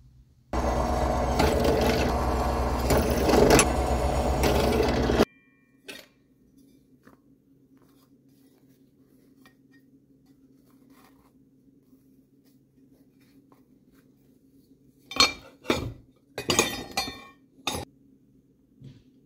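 Benchtop drill press running, drilling a rivet hole through thick sheet steel, for about five seconds before cutting off sharply. Near the end, a quick run of metallic clinks and knocks as the steel plate is handled.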